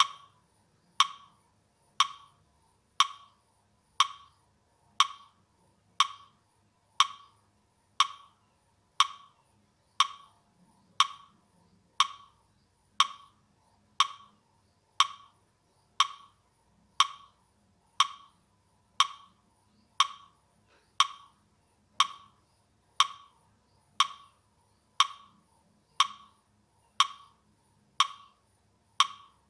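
Metronome ticking steadily at one dry, wood-block-like click per second (60 beats per minute), setting the count for slow deep breathing.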